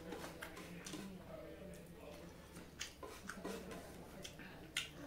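Eating by hand from a plate: fingers gathering food off the plate and mouth sounds of chewing, with several short sharp clicks, the loudest near the end, over a steady low hum.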